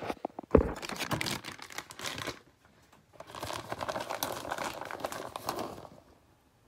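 Plastic bag of shredded cheese crinkling as the cheese is shaken out and sprinkled, in two stretches of about two seconds each with a short pause between, plus a single thump about half a second in.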